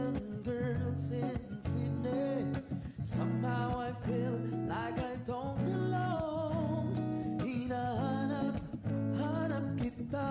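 Background music: a song with a singing voice over guitar, with a steady bass line.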